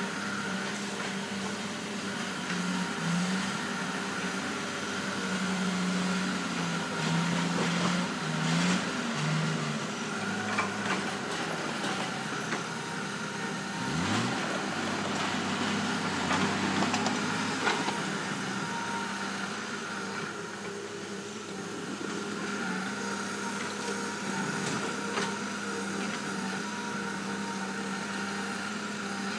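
Heavy diesel earthmoving machine, an excavator or bulldozer, running steadily, its engine pitch rising and falling under load in the first several seconds. A few sharp knocks stand out above the engine.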